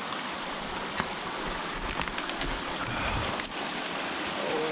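Small mountain stream running steadily, with a scatter of small ticks and splashes in the second half.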